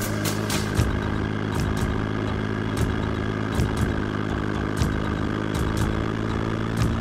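Motorcycle engine running at a steady pitch while cruising, heard from a camera mounted on the bike, with irregular clicks and knocks scattered over it.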